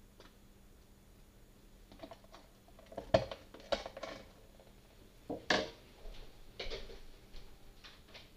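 Irregular clicks, taps and knocks of a person handling objects, the two loudest knocks about three and five and a half seconds in.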